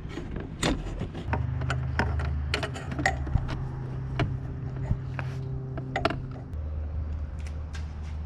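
Mechanical clicks, knocks and creaks of hands and tools working on car parts, over a steady low hum that shifts slightly about a second in and again near the end.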